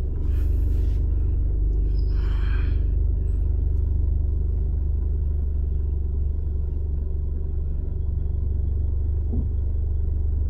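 Toyota Camry XV40 engine running steadily, heard as a low rumble inside the car's cabin.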